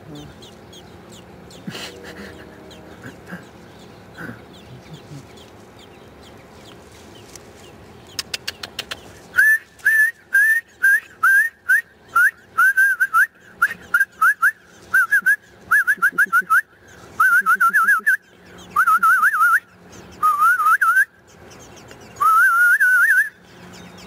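Nestlings begging: a rapid series of short, high, rising chirps that starts about nine seconds in and comes in quick groups, turning into longer wavering trills before stopping near the end.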